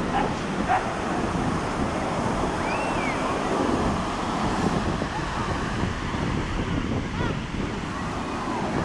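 Ocean surf breaking and washing ashore, with wind buffeting the microphone and a babble of distant beachgoers' voices.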